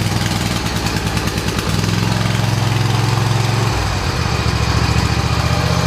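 Craftsman zero-turn mower's 26 hp Briggs and Stratton two-cylinder engine running just after its first start with freshly lapped valves, a little uneven for the first couple of seconds and then steady, its note shifting just before four seconds in.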